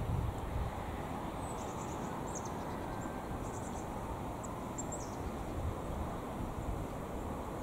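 Steady low rumble of wind on the microphone, with a few clusters of short, high bird chirps between about one and a half and five seconds in.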